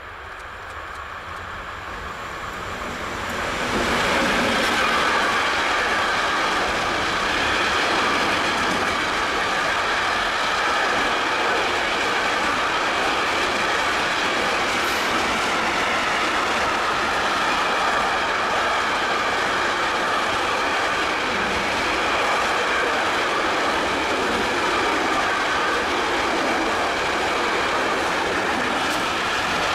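Freight train approaching and rolling past. The sound builds over the first few seconds, then the wagons' wheels run steadily on the rails for the rest, a long, even running noise.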